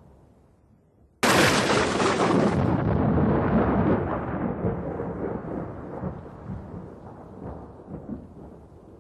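Thunderclap: a sudden sharp crack about a second in, then long low rumbling that slowly fades away.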